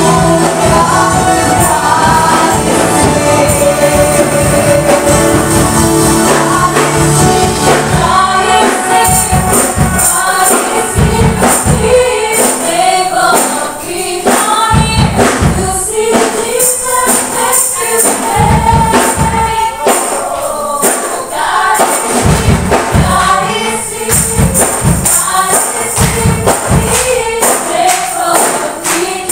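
Upbeat Christian worship song with sung vocals. It opens on held notes, and about eight seconds in drums and bass enter with a steady beat and bright high percussion.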